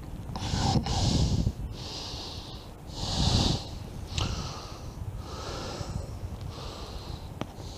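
A man breathing heavily through his nose in a run of short, hissy breaths, about one a second, while working a treble hook out of his knuckle.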